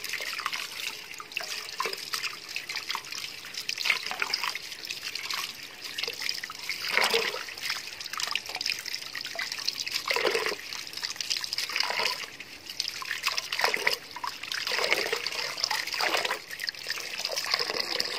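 Leafy greens being washed by hand in a metal pot of water: repeated sloshing and splashing, a swish every second or two.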